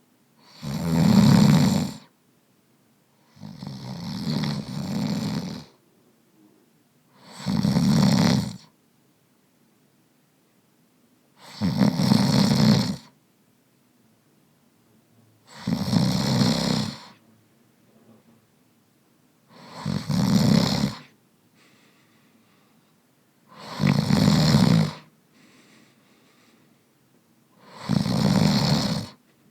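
A man snoring: eight snores, one about every four seconds, each lasting one to two seconds, the second one longer and softer than the rest.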